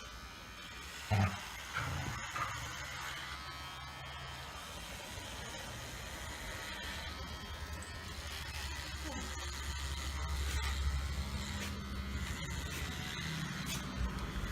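Cordless rechargeable dog hair clipper running with a steady buzz, somewhat louder in the second half. A short, louder sound stands out about a second in.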